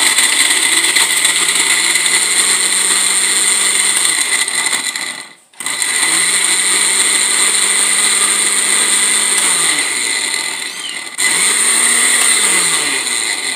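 Electric 3-in-1 blender with its small grinding jar, run in three bursts of a few seconds each to grind chopped carrots. The motor's hum falls in pitch as it winds down after each burst.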